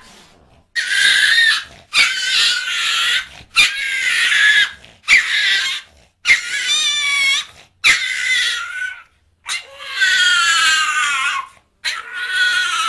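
A small dog and a cat squabbling: a run of about eight high-pitched squealing, snarling cries, each about a second long, several wavering or sliding down in pitch.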